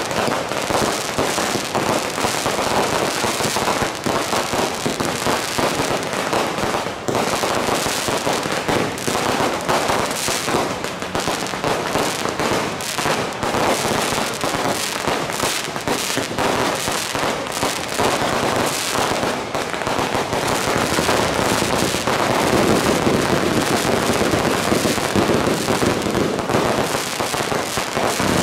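Firecrackers and fireworks going off without pause: a dense, rapid crackle of bangs from firecrackers burning on the street, with aerial fireworks bursting overhead.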